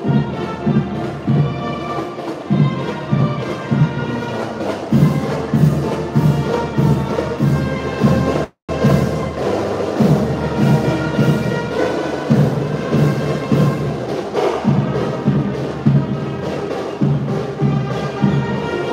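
A scout marching band of brass and drums playing a march: held brass notes over a steady drum beat of about two strokes a second. The sound cuts out for a split second about halfway through.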